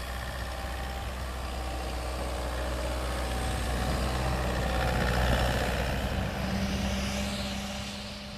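Toyota Land Cruiser Prado's engine running under load as the SUV ploughs through deep snow, with a broad rushing noise of snow and tyres. It grows louder as the vehicle comes close, peaks about five seconds in, then fades near the end under a steady low hum.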